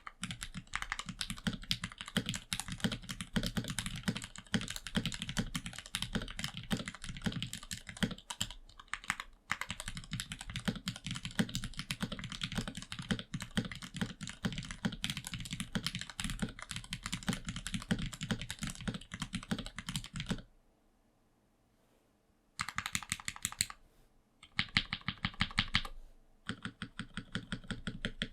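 Fast typing on a 65% gasket-mount custom mechanical keyboard with Krytox 205g0-lubed Gateron Ink Black switches and GMK keycaps, the board resting on its bare bottom with no rubber feet. The keystrokes run continuously for about twenty seconds, stop for about two seconds, then return in three shorter bursts.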